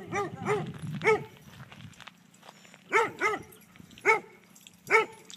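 German Shorthaired Pointer barking: a quick run of barks in the first second, a pause, then single barks about a second apart. It is a play bark, which the owner reads as "chase me".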